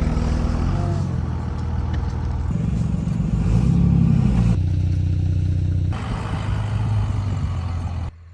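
A vehicle engine running steadily, rising in pitch as it revs about four seconds in, heard in several short clips cut together.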